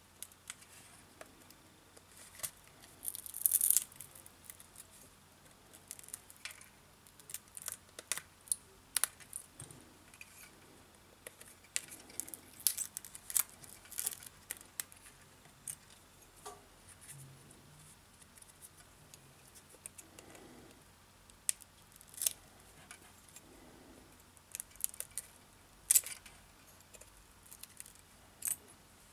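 A metal pick clicking and scraping at the cracked glass edge and soft plastic side frame of a Huawei P10 display module, with crackles as the plastic frame bends. The clicks and scratches are scattered through, with a short louder scrape a few seconds in.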